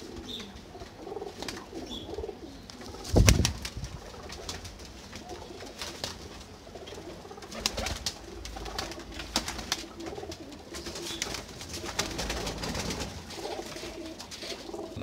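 Domestic pigeons cooing in a loft, with short clicks and one loud thump about three seconds in.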